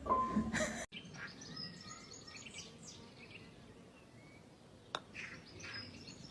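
Faint, scattered high-pitched chirps over a quiet background, with a single sharp click about five seconds in.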